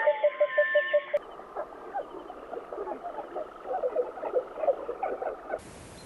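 Birds calling: for about the first second, a rapid run of short piping notes with longer whistles sliding down over it, then a busy chatter of many short chirps. About five and a half seconds in, it gives way to a faint steady hiss.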